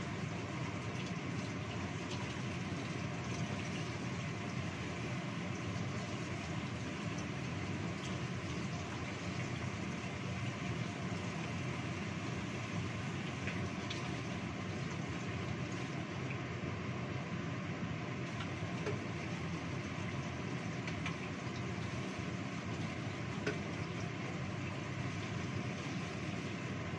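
Steady rushing noise of a gas stove burner heating a lidded wok, with chicken simmering in water inside it. A few faint ticks come through.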